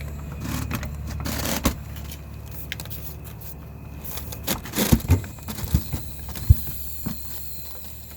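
Car jack being pumped by hand to press against a tire and break its bead, with a series of sharp knocks and clicks about halfway through over a steady low hum.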